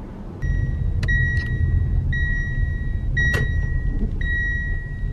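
Electric car driving, with low road and tyre rumble in the cabin and a repeating in-car warning chime: a steady high beep about once a second with brief gaps between. A couple of sharp clicks come through about a second and three seconds in.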